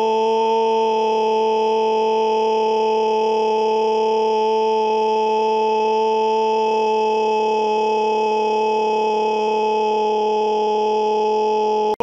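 A loud human scream held on one steady pitch without a break.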